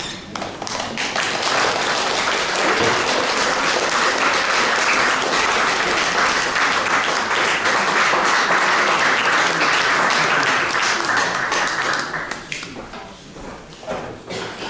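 Audience applauding, building quickly to full, dense clapping that holds for about ten seconds, then dies away into a few scattered claps near the end.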